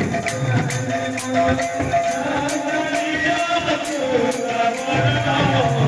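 Live folk music amplified through a PA system: singing over drums and a steady high percussion beat of about three strokes a second.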